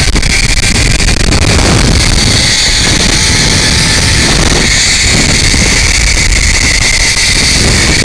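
Zipline trolley's pulley wheels running along the steel cable with a steady high whir, over heavy wind rumble on the microphone from the speed of the ride.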